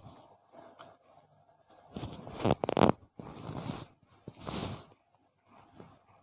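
Rustling and scraping in several short bursts, the loudest a little past halfway: handling noise from a phone camera being moved about.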